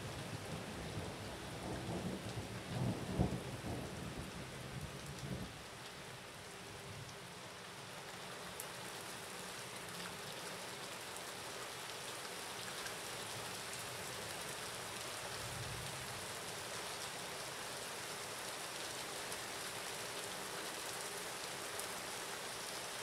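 Steady rain falling, with a rumble of thunder in the first few seconds that swells to its loudest about three seconds in and dies away by about five and a half seconds.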